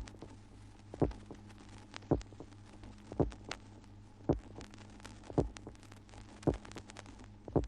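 Heartbeat sound effect: slow, even low thumps a little over a second apart, some with a softer second beat close behind, over a steady low hum.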